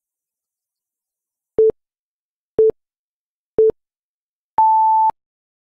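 Electronic countdown beeps: three short, low beeps a second apart, then one longer, higher beep, marking the end of the reading time for the questions.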